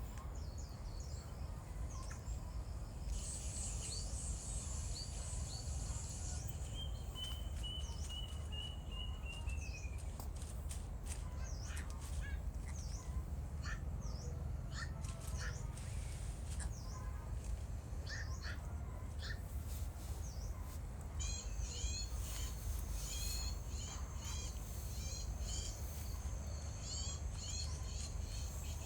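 Several wild birds chirping and calling over a steady low rumble, with a trill that falls slightly in pitch several seconds in and a quick run of repeated chirps in the last third.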